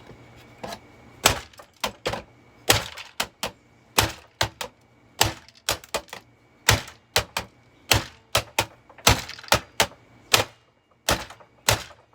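Hammer blows striking the housing of a Eureka The Boss bagged vacuum cleaner: a long run of sharp knocks, about two a second at an uneven pace.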